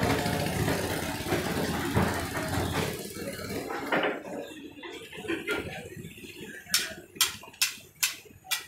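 A metal ladle clinking against a large aluminium cooking pot: a quick run of about six sharp clinks near the end. Before that, a steady rushing noise fades away over the first few seconds, with a few duller knocks.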